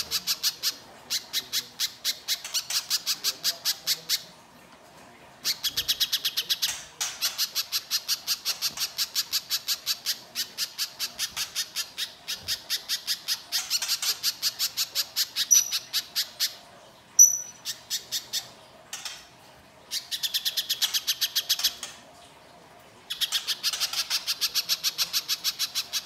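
Little spiderhunter (pijantung pisang) giving its harsh, rapid chattering call, a fast run of sharp notes at about seven a second. It comes in long bouts broken by a few short pauses, with a couple of brief high whistled notes about two-thirds of the way through.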